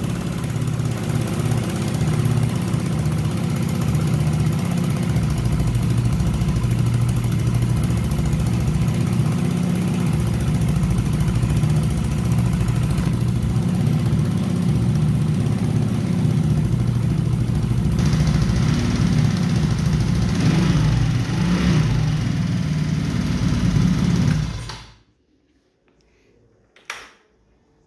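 Royal Alloy GT125 scooter's 125cc single-cylinder engine idling steadily after starting cleanly on a newly fitted stator. It cuts off about 25 seconds in, followed by a faint click.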